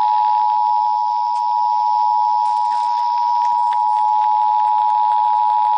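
Emergency Alert System two-tone attention signal, 853 Hz and 960 Hz sounded together as one steady, loud dual tone, heralding a National Weather Service flash flood warning.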